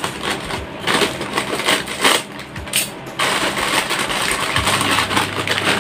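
Metallised plastic snack packet crinkling as it is snipped open with scissors, then corn puffs rustling and pattering out of the packet.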